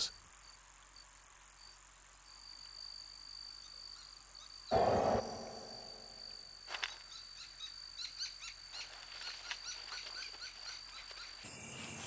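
Insect chirring at night, a steady high-pitched trill, with a brief louder sound about five seconds in.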